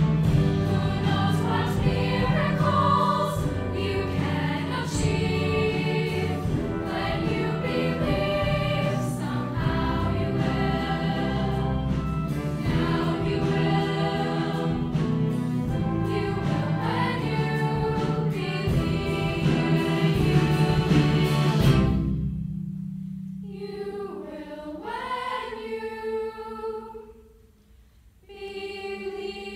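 A young mixed choir singing with a full accompaniment that includes a strong bass line. About two-thirds of the way through the accompaniment drops away and the singing goes on more softly. Near the end it pauses briefly, almost to silence, then the voices come back in.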